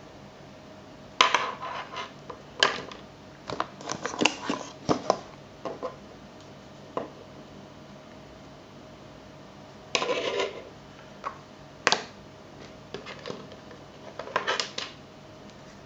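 Hands handling small plastic accessories and cables and setting them down on a wooden desk: irregular clicks, taps and short rustles, in scattered bursts with a few quiet gaps.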